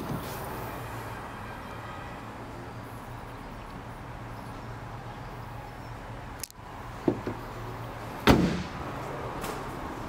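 A car bonnet is slammed shut about eight seconds in: one loud thump with a short ring-out, after a smaller knock about a second before. A steady low hum runs underneath.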